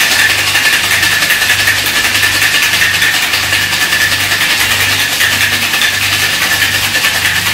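Ice rattling hard in a metal cocktail shaker shaken by hand in a fast, even rhythm. This is a strong shake to work honey through a Brown Derby of whiskey and grapefruit juice.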